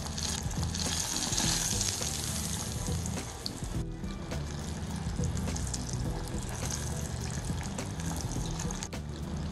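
Hot oil sizzling in a steel pot as a spoonful of meatball mixture goes in to deep-fry. The sizzle swells about half a second in and settles after a couple of seconds.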